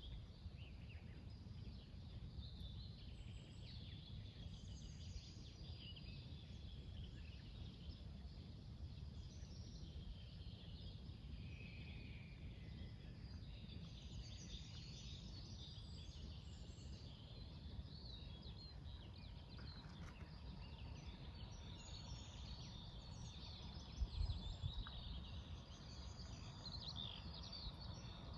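Quiet outdoor ambience: small birds chirping and singing here and there over a steady low rumble, with one brief low bump late on.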